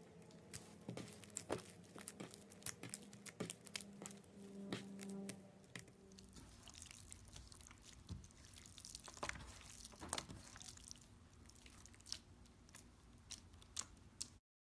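Faint, irregular wet clicks and crackles of slime being squished and poked by hand. The sound cuts off abruptly near the end.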